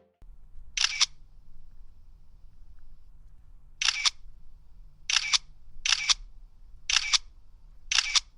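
Camera shutter clicks, six in all, each a quick double snap, spaced about a second apart after a first one near the start, over a faint low hum.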